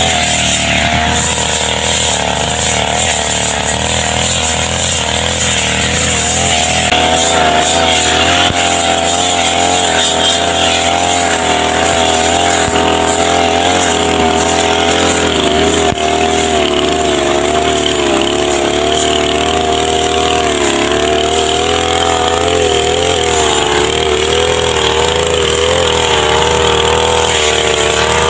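Two-stroke brush cutter (grass trimmer) engine running continuously, its speed wavering slightly; the pitch steps up about six seconds in and eases back down in the second half.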